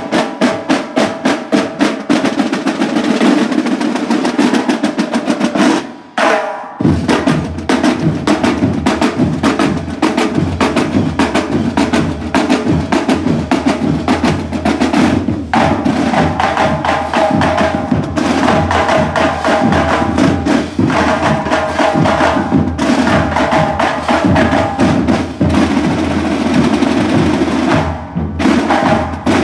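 Marching-band drum line: snare drums beaten with sticks in a steady march cadence with rolls. After a short break about six seconds in, the drumming resumes with a heavier low beat.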